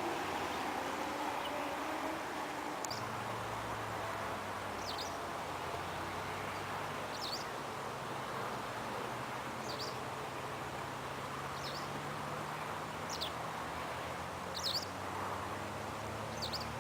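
A bird's short, high, falling chirp, repeated about every two seconds over steady background noise. A low steady hum comes in a few seconds in.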